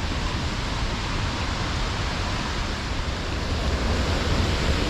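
Waterfall rushing steadily: an even wash of falling water with a deep rumble beneath it.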